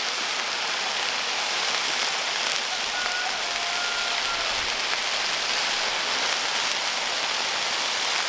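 Chicken strips sizzling steadily in their juices on a hot steel disc griddle, a constant even hiss.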